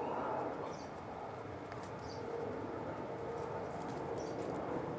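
Rural outdoor background: a steady hiss with a faint steady hum, and a few brief, faint bird chirps now and then.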